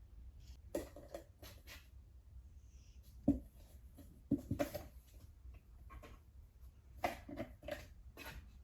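Cats scuffling in a cardboard box: a kitten pawing and scratching at the cardboard in short bursts, with a sharper knock about three seconds in.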